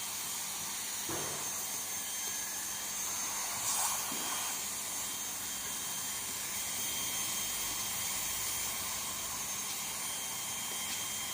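Hot-air heat gun blowing steadily, with a faint high whine, as it heat-welds a PVC patch onto a soft-top canopy. A brief louder rush comes about four seconds in.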